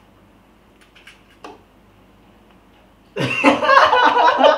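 A few faint small clicks in a quiet room, then about three seconds in a man bursts into loud, hearty laughter.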